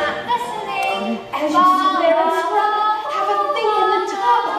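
A young performer's solo singing voice in a stage musical number, sung in phrases with several long held notes.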